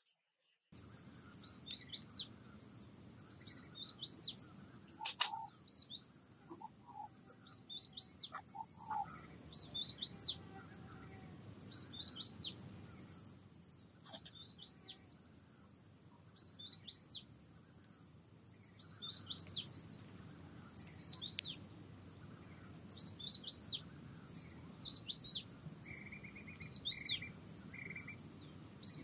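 Forest birds calling: short, quick chirps, mostly in twos and threes, repeating about once a second over a steady high hiss.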